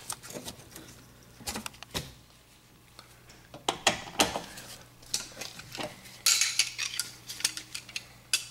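Steel nut driver clicking and scraping on the screws of a rusted oven terminal block: scattered small metallic clicks, with a short burst of scraping about six seconds in.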